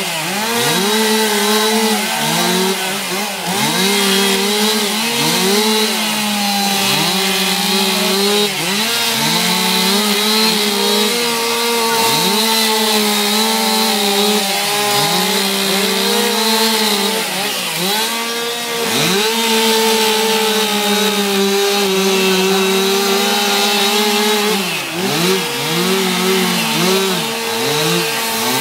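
Petrol chainsaws carving into wood, the engines revving up and dropping back again and again as the throttle is worked through the cuts.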